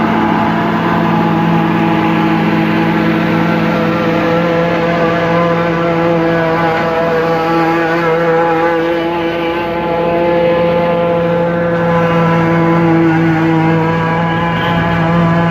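John Deere 4250 tractor's diesel engine running steadily under load while its PTO drives a John Deere 3970 pull-type forage harvester chopping rye. The result is a loud, steady drone with several held tones, some of them wavering slightly in pitch.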